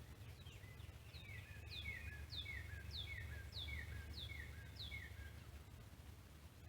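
A songbird singing a quick run of about eight repeated notes, each sliding down in pitch, over a low steady rumble; the song stops about five seconds in.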